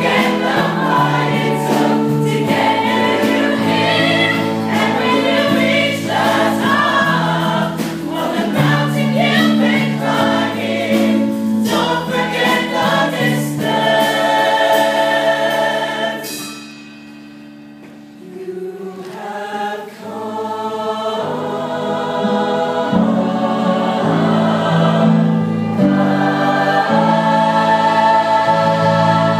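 Show choir singing a ballad, with a female soloist on a microphone over the held choral chords. The music drops quiet about halfway through, then builds back to a loud, sustained full-choir chord near the end.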